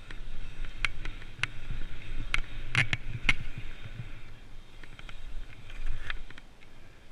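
Identiti Krisis MX 24-inch BMX race bike riding a pumptrack: tyres rolling on asphalt with a low rumble and a hiss, broken by sharp rattling clicks from the bike, most of them around the middle and one near the end. The hiss drops away about halfway through and the sound grows quieter near the end.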